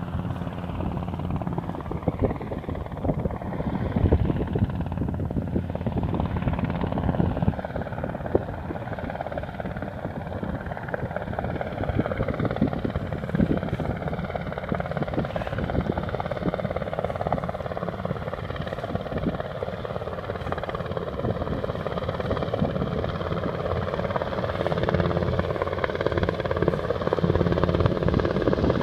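Helicopter in flight, its rotor beating steadily with engine noise, growing louder over the last few seconds as it comes closer.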